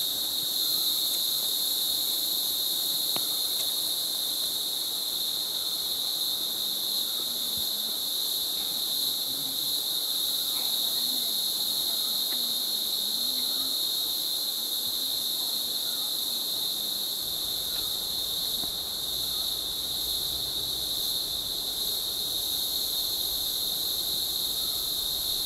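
Rainforest insect chorus: a steady, unbroken high-pitched shrilling drone.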